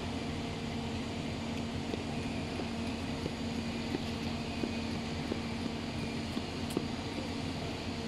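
Steady drone of running machinery with a low hum that drops out about six and a half seconds in, and a few faint clicks.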